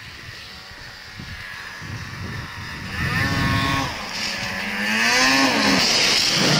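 Snowmobile engine coming up loud about three seconds in, revving and rising in pitch as the sled pulls away across the snow, with a rushing hiss over it; the pitch falls away again near the end.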